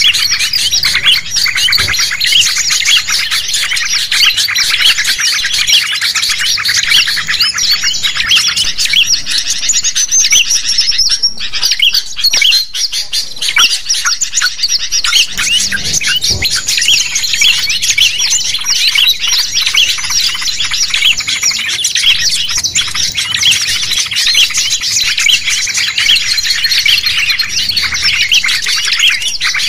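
Dense, continuous chorus of many small songbirds chirping and trilling over one another in rapid, overlapping calls. This is a "noisy birds" trapping-lure mix (suara pikat burung ribut) meant to draw wild birds in.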